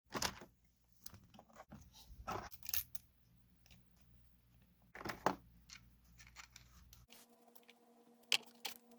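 Irregular sharp clicks, taps and scraping, as of small hard parts being handled; a low steady hum cuts off about seven seconds in.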